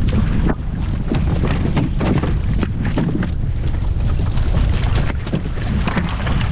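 Heavy wind buffeting the microphone on a small fishing boat under way in rough seas, with the boat's engine and waves running underneath in a steady loud rumble broken by repeated gusts.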